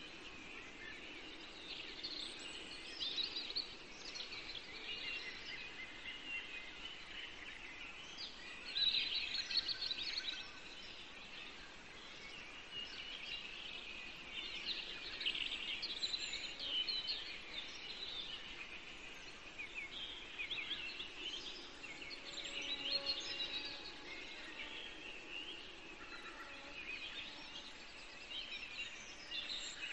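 Small birds chirping and twittering in bursts of quick, high notes over a steady background hiss.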